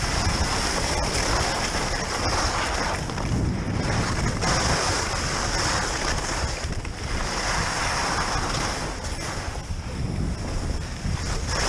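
Wind rushing over the microphone, mixed with the hiss of skis sliding on snow. The noise swells and eases every two to three seconds, as if with each turn.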